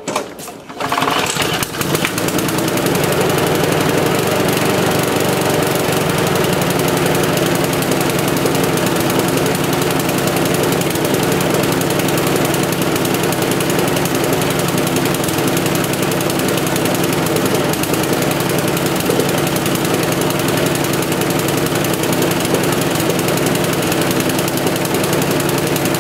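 Champion rotary lawnmower's Briggs & Stratton petrol engine, pull-started, catching about a second in and running on, lumpy and not up to full speed even with the speed tab bent over. The owner is 90% sure the cause is a worn carburettor diaphragm and gasket.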